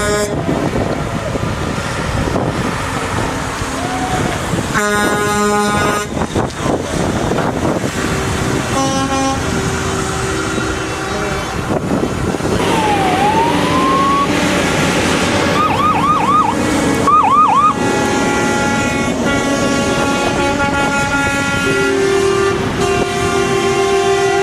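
Transport truck air horns blasting again and again over running diesel engines, several horns overlapping near the end. Partway through, a siren gives one dipping-and-rising wail and then a few quick whoops.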